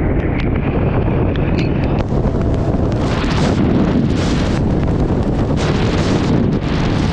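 Heavy wind buffeting the microphone while riding at speed, a loud, steady low rumble. A few light ticks come in the first couple of seconds, and short bursts of brighter hiss follow from about three seconds in.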